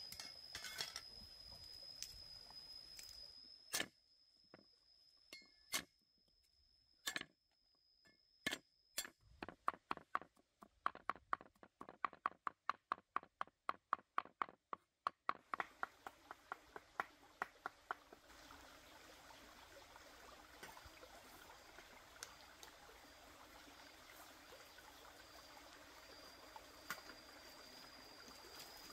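Sharp taps or knocks, a few spaced out at first, then a quick even run of about five a second for some five seconds, followed by a steady soft hiss like trickling water. A faint, steady high-pitched whine sounds behind it early and late.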